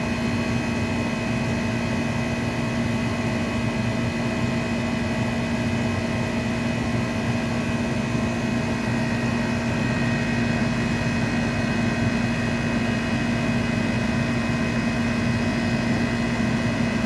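Air-conditioning condensing unit running steadily: compressor hum and condenser fan, a constant drone with a few steady tones and no change throughout.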